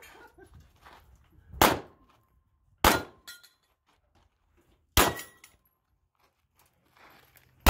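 Handgun shots fired one at a time while moving through a practical shooting stage: three sharp reports, the first two about a second apart and the third about two seconds later, with a fourth at the very end.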